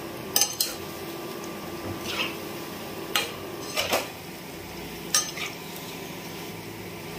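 Steel slotted skimmer clinking and scraping against a steel kadhai while pakoras are turned in hot oil: about eight sharp clinks, several in quick pairs, over the steady sizzle of the frying oil.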